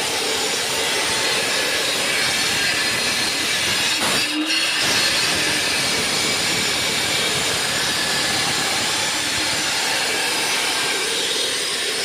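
Power saw cutting concrete, a loud, steady, harsh grinding noise with a brief dip about four seconds in.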